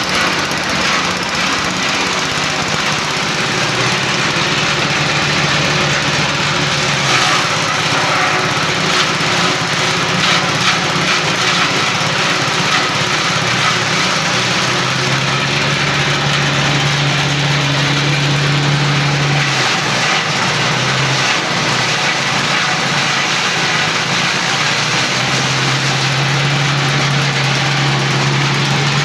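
A forage chopper cutting grass and banana stems, driven by a small engine that runs loud and steady. Its low note shifts up and down a few times.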